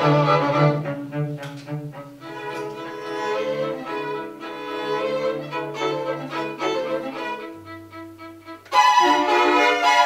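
String quartet of two violins, viola and cello playing. A loud opening thins into a quieter passage that ends on a low held cello note, then the full quartet comes back in loudly near the end.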